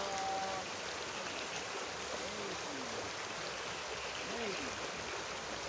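Shallow rocky stream rushing steadily over and around stones.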